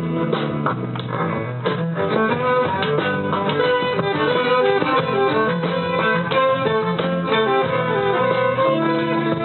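A small band playing a tune live: a quick melody line of many short notes over guitar accompaniment.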